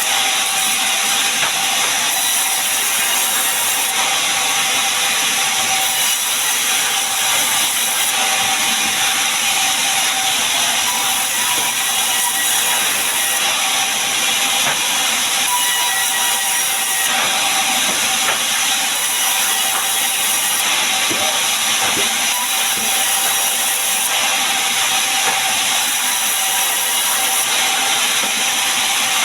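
Sawmill saw cutting gmelina wood into boards: a steady, loud hiss of the blade through the timber, with a faint steady tone under it and no break.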